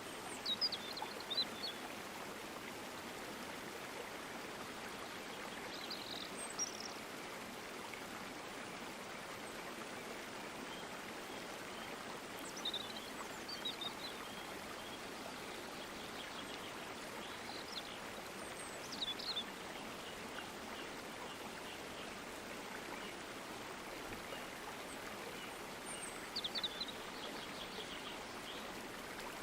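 A stream of running water, flowing with a steady rush, with short high bird chirps breaking through in brief clusters about five times.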